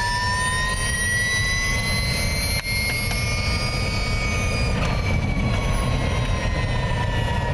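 Ducati V21L MotoE electric race bike at full speed, recorded onboard: the electric drive's high whine rises slowly as the bike accelerates down the straight, then drops slightly in pitch after about five seconds, over a steady rumble of wind.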